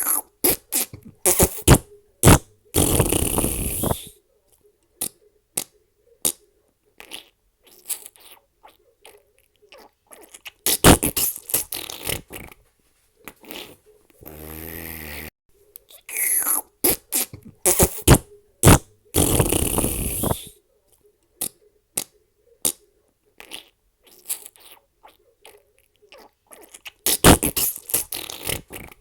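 A run of fart sound effects: many short, sharp pops and sputters with a few longer, drawn-out blasts between silent gaps. The same sequence comes round again about halfway through.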